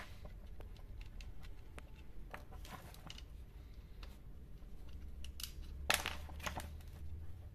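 Light clicks and rubbing of an angle grinder's plastic housing as the rear handle is worked loose from the motor housing by hand, with one sharper click about six seconds in.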